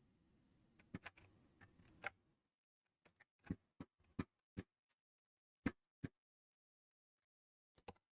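Faint near-silence broken by about a dozen short, sharp clicks at irregular intervals, typical of a computer mouse being clicked during CAD work.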